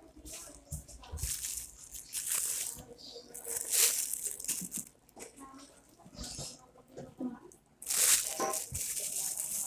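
Ripe jackfruit being torn apart by hand and its bulbs eaten, with a plastic bag rustling under it: several loud bursts of tearing and crinkling, the loudest near 4 s and from about 8 s.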